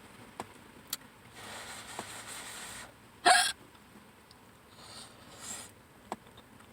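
A single sharp, loud hiccup about three seconds in, with a soft hiss before it and a few faint clicks around it.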